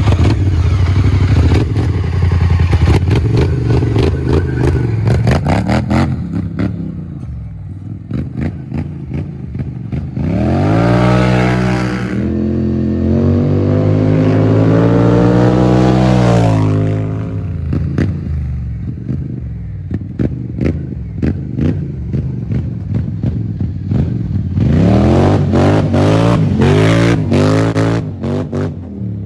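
A Polaris Scrambler XP 1000 S ATV engine running loud through an aftermarket HMF dual exhaust. It revs hard from the seat, then makes a drive-by whose pitch climbs and then falls, and revs hard again near the end. Sharp crackling clicks run through it all.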